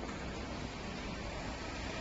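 CNC-controlled electric stage hoists running, a steady mechanical noise without change.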